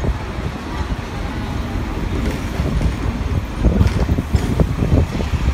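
Hong Kong double-decker tram running along its street rails, heard from on board as a steady rumble. From about three and a half seconds in, irregular knocks and clatter from the tram grow louder.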